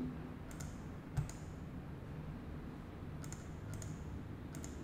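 A few faint, sparse computer mouse clicks, about five, over a low steady hum. The loudest, about a second in, has a slight thud.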